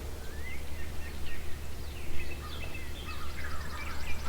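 Dawn chorus of songbirds: many short chirps, whistles and slurred notes overlapping, over a steady low rumble.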